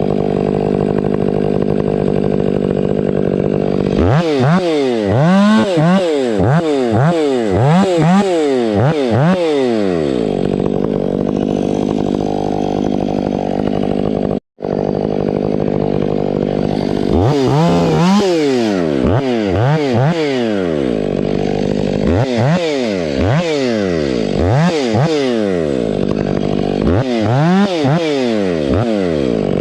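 Stihl 500i two-stroke chainsaw running and revved up and back down again and again in quick surges, in several bursts of about a second each. The sound cuts out for an instant about halfway through.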